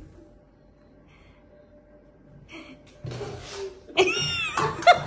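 Air rushing out of a toy balloon in a loud hiss, starting about three seconds in, as the jet knocks a plastic cup off the table. About a second later a voice gives a high, gasping exclamation.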